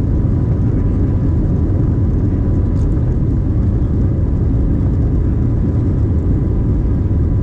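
Cabin noise of an Airbus A321neo taxiing: a steady, heavy low rumble of the idling engines and the rolling airframe, with a faint steady whine above it.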